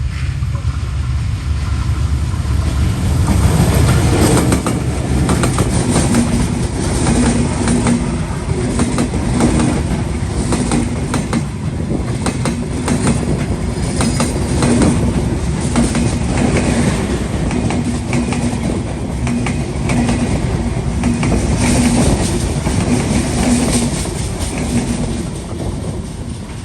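Intercity passenger train passing close by at speed, its wheels clacking rhythmically over the rail joints under a steady rumble; the sound eases off near the end.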